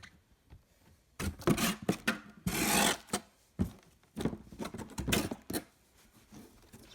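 Cardboard box and packing being handled as ceiling fan parts are put back in: a run of scraping and rubbing noises starting about a second in, the longest about halfway through.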